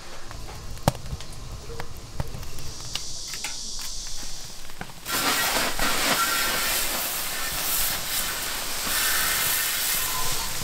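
A few light knocks and clinks, then about halfway through a loud steady hiss of steam from a boiling cast-iron cauldron (gamasot) starts suddenly.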